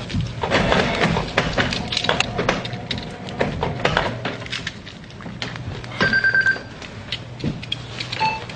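A run of irregular clicks and knocks over a steady low hum, with a short, steady high beep about six seconds in and another brief beep near the end.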